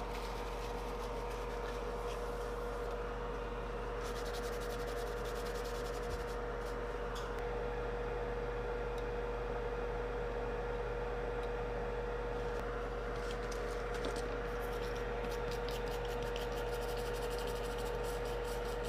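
Scratchy rubbing on an SSD circuit board as it is cleaned, in stretches about four seconds in and again from about thirteen seconds, over a steady electrical hum.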